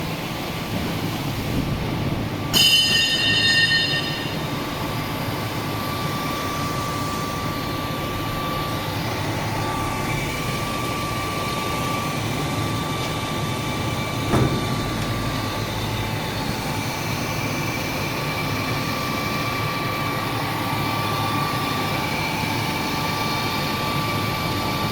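ZK5232X12 multi-spindle drilling machine running under a drilling test: steady machine noise with a faint high whine. A brief shrill screech comes about two and a half seconds in and lasts about a second and a half, and there is one sharp knock about fourteen seconds in.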